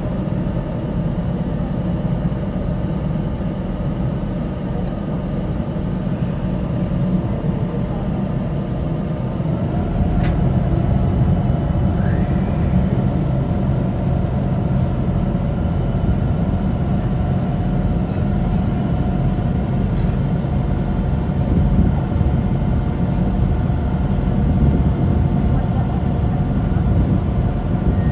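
RiverCat-class ferry's diesel engines droning steadily, heard from inside the passenger cabin. About ten seconds in, the engine note rises in pitch and grows louder and deeper as power comes up.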